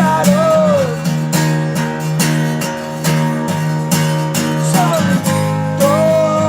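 Acoustic guitar strummed in a steady rhythm. A held melody line bends over it near the start and comes back near the end.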